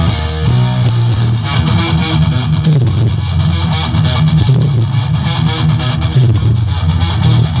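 Loud music with strummed, distorted electric guitar over a heavy, dense bass line, played through a large sound system.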